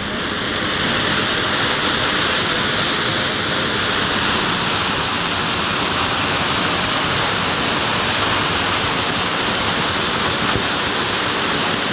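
Large anar (flower-pot fountain firework) spraying sparks with a steady hiss, rising slightly about a second in and holding even throughout.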